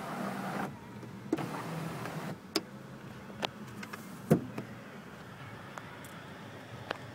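Power sunroof motor of a 2013 Toyota Corolla S running steadily as the sunroof tilts, stopping a little over two seconds in. A few sharp clicks and knocks follow, the loudest about four seconds in.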